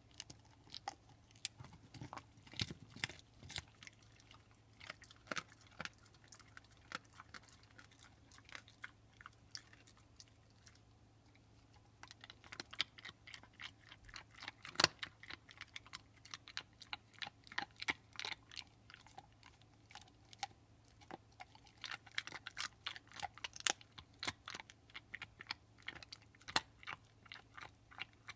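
A pit bull gnawing on a beef bone: irregular sharp cracks and crunches of teeth on bone, easing off for a few seconds about eight seconds in, then coming thicker again.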